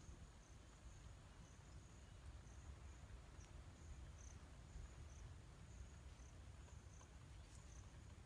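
Faint insect chirping outdoors: short, high chirps repeating about twice a second, a little unevenly, over a low steady rumble.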